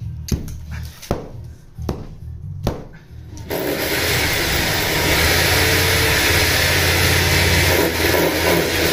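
Club hammer striking a brick wall's mortar joint: four sharp knocks about a second apart. About three and a half seconds in, this gives way suddenly to an angle grinder cutting into the masonry with a loud, steady grinding.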